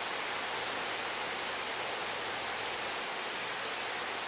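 Rushing river rapids: a steady, even roar of fast white water.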